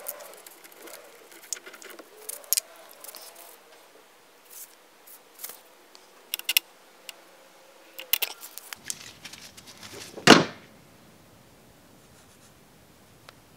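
Light metallic clicks and clinks of a heavy red welding cable and its crimp lug being handled and fitted, with one louder short rub about ten seconds in.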